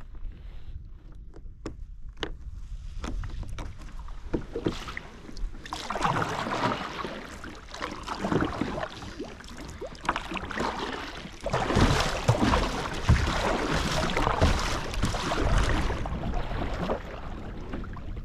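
Water splashing and sloshing around a kayak, starting with a few small knocks and clicks, then growing into heavier, uneven splashing about six seconds in that is loudest a little past halfway before easing off.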